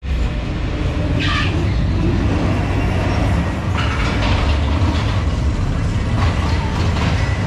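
Reverchon spinning coaster car rolling along its steel track out of the station, a steady low rumble, with brief higher-pitched sounds about a second in and again around four seconds in.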